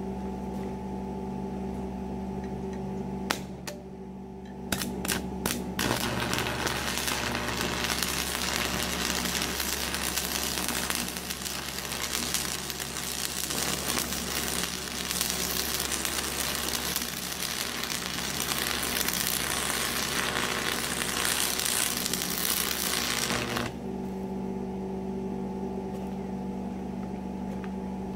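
Stick welding with a 7014 rod at 105 amps, turned down so the forged steel hook doesn't melt too fast: a few sharp crackles as the arc is struck about three to six seconds in, then the arc crackling and sizzling steadily for about eighteen seconds before it stops. A low steady hum runs underneath throughout.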